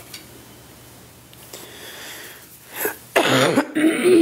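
A woman sneezes into her sleeve about three seconds in: a quick breath in, then a loud sneeze that trails off into a falling voiced sound.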